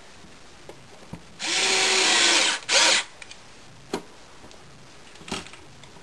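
Power drill-driver driving in a screw: the motor whines at a steady pitch for just over a second, then gives one short second burst, with a few light clicks around it.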